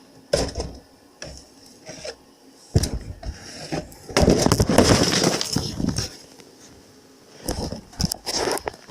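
A run of irregular knocks and clattering, with a longer stretch of scraping noise from about four to six seconds in: objects being handled and moved about.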